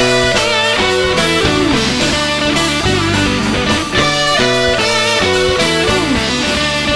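Rock band playing: electric guitar lines with bent notes over a steady drum beat and bass.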